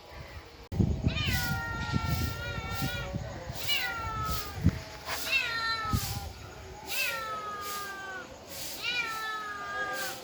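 A cat meowing five times in long, drawn-out calls, each rising at the start and then held, about every one and a half to two seconds. A low rumbling noise sits under the first few calls.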